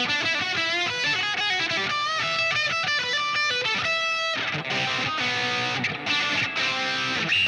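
Electric guitar, a Fender Stratocaster played through effects pedals, playing a fast lead line with bends and vibrato, then a held note about four seconds in, followed by lower, denser notes.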